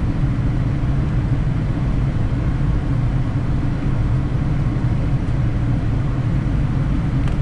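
Steady low rumble of flight-deck noise in a Boeing 787 Dreamliner on short final approach: airflow over the nose and engine noise, even and unchanging.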